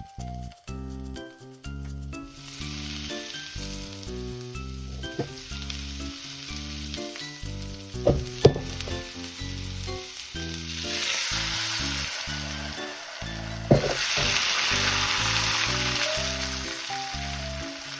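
Leafy greens stir-frying in a hot pan, sizzling, louder in the second half, with a few sharp knocks. Background music with plucked or piano-like notes plays underneath.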